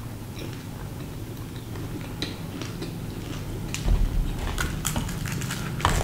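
Close-miked chewing with small wet mouth clicks. About four seconds in comes a thump, then crackling as a deep-fried bhatura is torn apart by hand.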